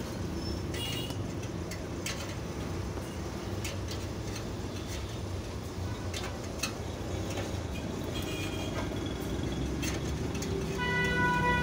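Steady low rumble of street traffic, with scattered light ticks and rustles from small cut sticker pieces being handled. A vehicle horn sounds with one held note near the end.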